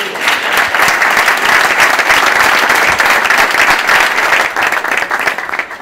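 A roomful of seated dinner guests applauding: a dense round of clapping that starts at once and dies away near the end.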